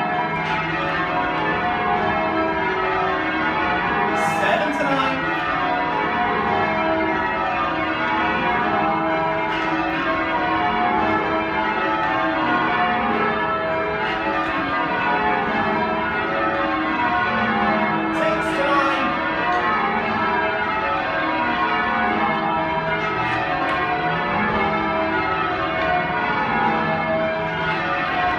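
Change ringing on a ring of ten church bells with a 17cwt tenor in E: the bells strike one after another in continuous rows, their tones ringing on over each other.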